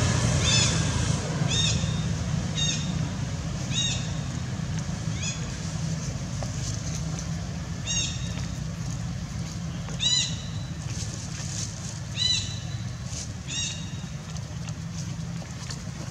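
Newborn long-tailed macaque crying with short, high, arched chirps, about a dozen of them at roughly one a second with a brief pause midway: the cries of a hungry infant seeking milk. A steady low rumble runs underneath.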